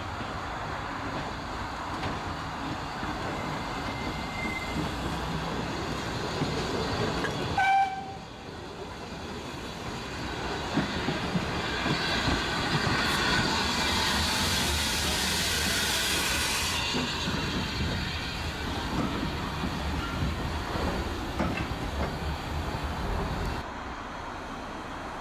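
Small steam saddle-tank locomotive running slowly past with a passenger carriage, its wheels clicking over pointwork. About eight seconds in there is a short whistle note, and from about twelve to seventeen seconds a loud hiss of escaping steam as the engine passes close by.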